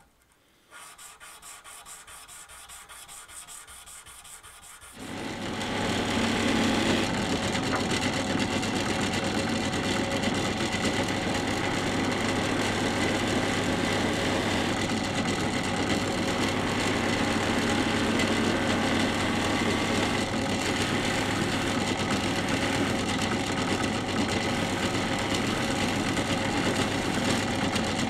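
Hand-sanding strokes along a carbon-steel knife blade clamped in a vise. About five seconds in, a drill press spinning a cloth buffing wheel takes over, running steadily with a low hum as the blade is buffed toward a mirror finish.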